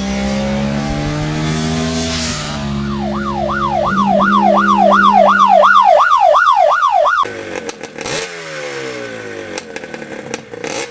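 Motorcycle engine: a bike goes by with its engine note falling. Then, over a steady idle, a siren-like tone wails up and down about two and a half times a second for about four seconds and stops suddenly. The engine then revs again, with a few sharp clicks.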